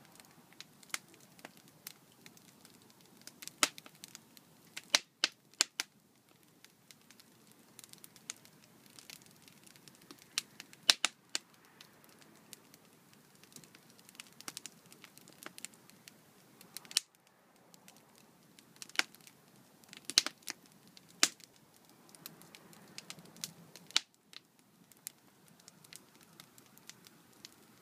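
Wood fire in a mesh-screened fire pit crackling, with sharp pops at irregular intervals, a few much louder than the rest.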